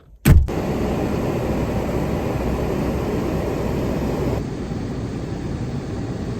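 A small car's engine starts with a sudden loud burst about a third of a second in, then runs steadily. The running noise eases slightly about four and a half seconds in.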